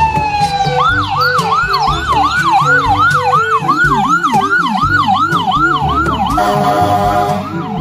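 Electronic ambulance siren: a falling tone, then a fast wail rising and falling about three times a second, which stops shortly before the end. Background music plays underneath.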